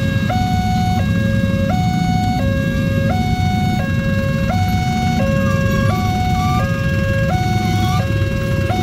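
Railway level-crossing warning alarm sounding a steady hi-lo two-tone signal, switching between a lower and a higher tone about every half second. Under it is the rumble of motorcycle and truck engines crossing the tracks.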